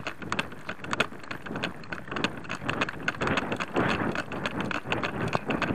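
Running footsteps on a leaf-strewn dirt trail: quick, irregular crunching steps mixed with clicks and rattles of carried gear.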